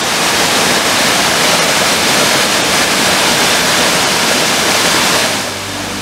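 Waterfall rushing down rock and splashing into a rocky pool in a steady, even wash of water noise, easing off a little near the end.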